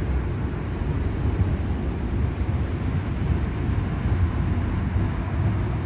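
Low, steady rumble of an approaching Seoul Subway Line 3 electric train, heard from the platform behind closed screen doors.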